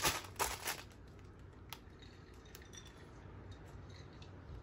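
Small plastic bags of diamond-painting drills being handled: a few light clicks in the first second, then sparse faint ticks.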